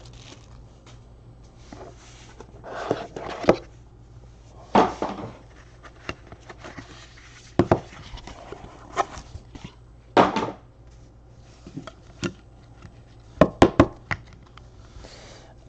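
Hands handling a trading-card box, its lid and hard plastic graded-card slabs: scattered clicks, taps and short rustles, with a quick run of sharp clicks near the end.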